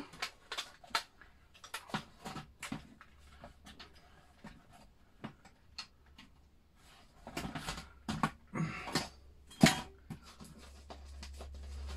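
Plastic clicks and knocks from a Commodore Amiga A600's keyboard and top case being set back in place and pressed down, with one sharp click about ten seconds in the loudest.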